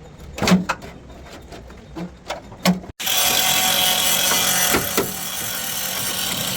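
Workshop sounds: several sharp knocks and taps, then, after an abrupt cut about three seconds in, a loud steady hissing whir of a power tool running.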